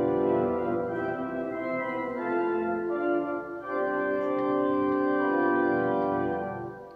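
Organ playing slow sustained chords as the introduction to the sung responsorial psalm, fading out near the end.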